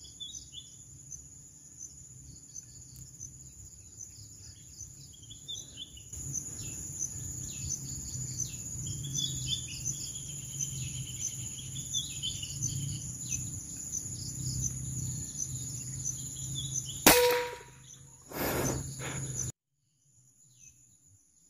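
Forest background of birds chirping and insects trilling, then a single sharp air rifle shot about seventeen seconds in, followed a second later by a brief rush of noise before the sound cuts off. The shot hits the jungle fowl it was aimed at.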